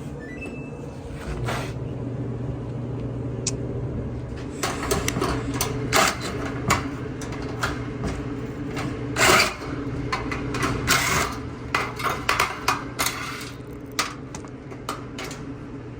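Repeated clicks and short metallic clattering of dryer parts being handled, over a steady low mechanical hum.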